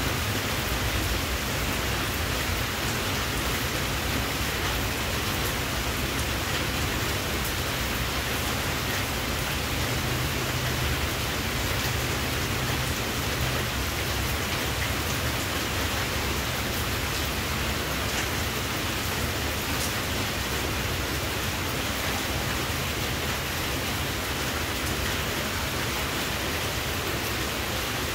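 Steady, even hiss of noise with no distinct events.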